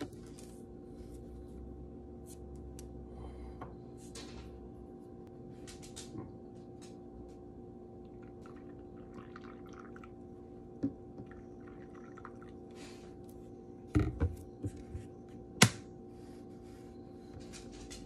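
A plastic coffee-creamer bottle with a flip cap and a ceramic mug being handled: small clicks and rustles, creamer poured into the mug, then a cluster of knocks about fourteen seconds in and one sharp knock about a second and a half later. A steady low hum runs underneath.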